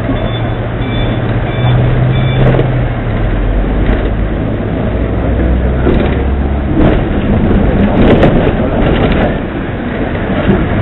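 Hong Kong double-decker tram running, heard from on board: a low motor hum that shifts in pitch a few times over the rumble of the wheels on the rails. Several sharp knocks and clacks come through.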